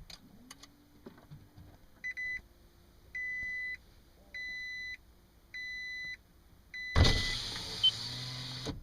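Gen II Toyota Prius starting up: a faint rising hum, then the dashboard chime beeping five times, about once a second, then a loud rushing noise about seven seconds in that cuts off abruptly. The grinding noise the car sometimes makes does not occur this time.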